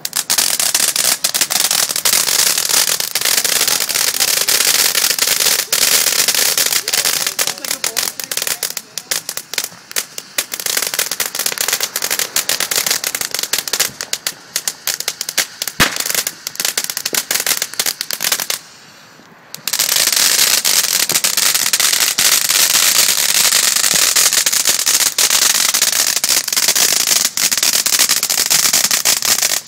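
Firecrackers going off in a rapid, unbroken crackle, stopping for about a second about two-thirds of the way through and then starting again.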